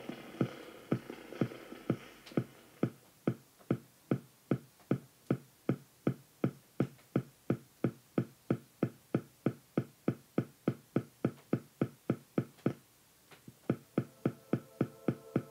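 Sharp clicks in a steady rhythm, about three a second, with a brief break near the end. At the start a faint hum fades out under them.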